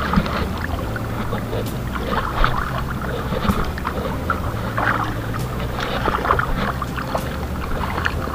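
Boat on the water: a low, steady motor hum with irregular splashing and scattered knocks.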